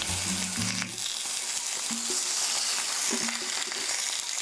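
Beef short ribs sizzling on a hot grill plate: a steady crackling hiss of fat and juices frying. Background music with low notes plays under it for about the first second, then stops.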